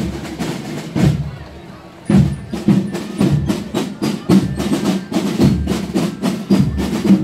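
Drums playing music, with a couple of single beats near the start and then a quicker steady beat, several strikes a second, from about two seconds in.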